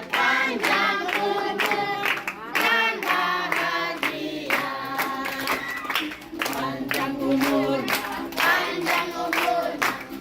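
A group singing an Indonesian birthday song together, with hands clapping along to the beat.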